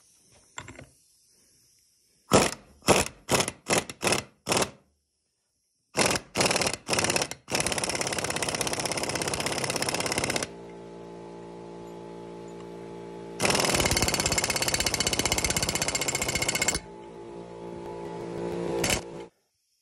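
Impact wrench driving the nut on the end of a ballscrew to press new angular contact bearings onto the shaft: several short trigger bursts, then two long runs of rapid hammering, each followed by a quieter, steadier hum.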